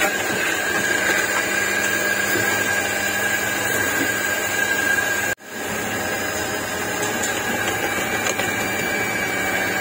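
A small motor running steadily, a high whine over a low hum, broken for an instant about five seconds in.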